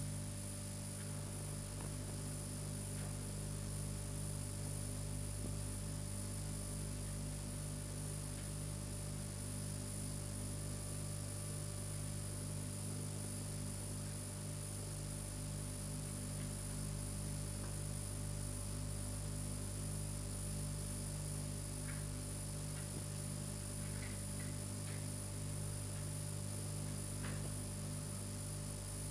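Steady electrical hum with a faint high whine and hiss, with a few faint ticks in the last few seconds: the background noise of an old film soundtrack.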